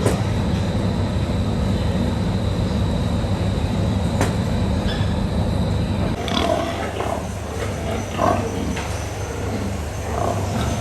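A steady low mechanical hum with a thin high whine. From about six seconds in, pigs grunt several times at uneven intervals.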